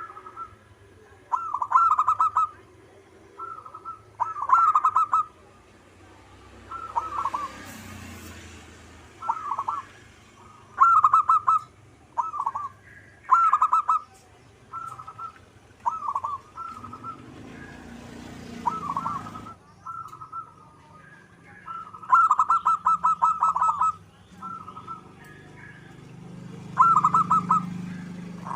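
Zebra dove (perkutut) cooing: short phrases of rapid trilled coos, repeated every second or two.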